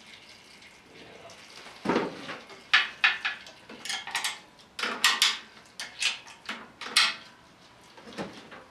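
Hand tools and metal parts being handled: about a dozen sharp metallic clinks and knocks, irregularly spaced, beginning about two seconds in.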